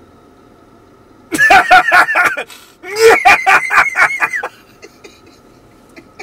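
A man laughing loudly in two bouts, each a quick run of rhythmic ha-ha pulses, the first about a second and a half in, the second about three seconds in.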